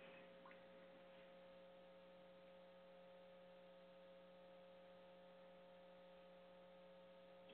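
Near silence: a faint, steady electrical hum made of several constant tones.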